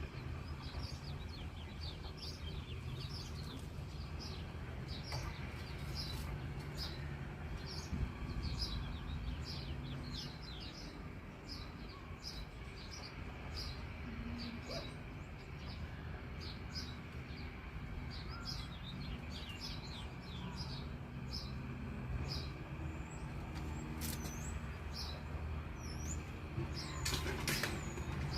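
Small birds chirping: many short, high chirps repeating one after another over a steady low background rumble. A brief rustling noise comes near the end.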